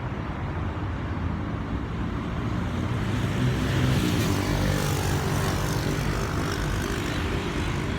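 A propeller plane's engine drone passing overhead, growing louder toward the middle and easing off a little near the end.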